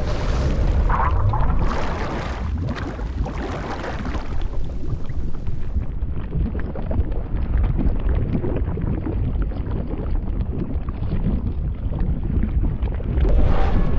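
Sound-effect rumble: a deep, noisy roar with brighter rushes in the first few seconds, duller through the middle, and a brighter surge about a second before the end.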